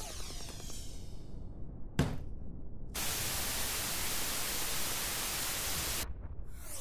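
Cartoon TV sound effects: a falling electronic sweep, a thump about two seconds in, then about three seconds of steady television static hiss that cuts off suddenly. Another falling sweep comes near the end as the old TV switches off.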